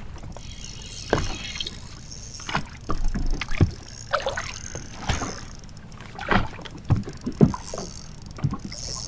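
Lake water slapping against a bass boat's hull in irregular knocks and splashes, with a hooked smallmouth bass splashing at the surface beside the boat, over a steady low rumble.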